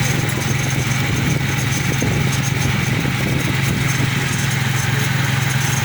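A steady low drone like an idling engine, with an even hum that does not change.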